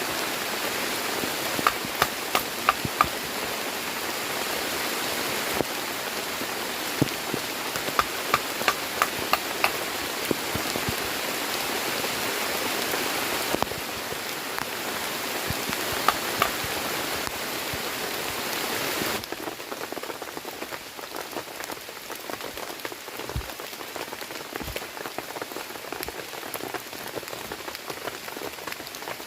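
Heavy rain falling steadily, with sharp louder drop impacts standing out from the hiss. About two-thirds of the way through it changes abruptly to a quieter, lighter patter of separate drops.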